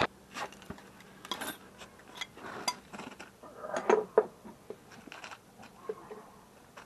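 Scattered small metallic clicks and clinks as a boat's hull drain plug is worked out by hand at the transom, with clothing rubbing against the microphone.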